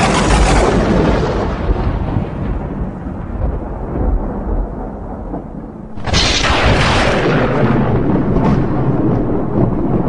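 Thunder: a loud clap that starts suddenly and rumbles away over about six seconds, then a second clap about six seconds in that rolls on.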